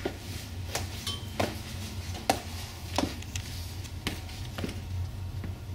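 Footsteps of work boots on a hard floor: short sharp knocks at an uneven pace, about one every half second to second, over a low steady hum.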